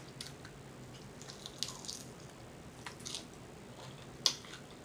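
Close-miked wet chewing and lip smacking while eating a garlic Parmesan chicken wing: scattered soft smacks and clicks, with one sharp, louder smack about four seconds in.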